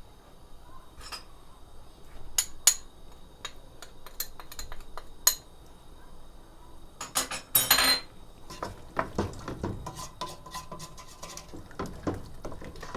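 A metal spoon clinking and scraping against a cooking pot as spices are added and stirred into a sauce. It makes scattered taps, with a louder cluster of clatter about seven to eight seconds in.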